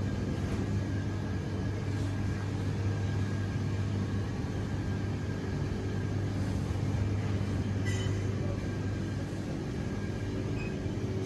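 Supermarket background: a steady low machine hum with a few faint steady tones above it, and a brief click about eight seconds in.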